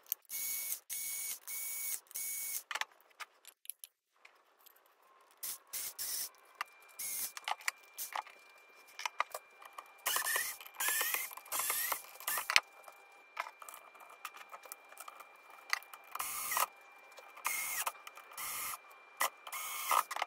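A cordless screwdriver whirring in many short bursts as screws are driven. There are four quick bursts at the start and more in clusters later, between clicks and rattles of screws and parts being handled.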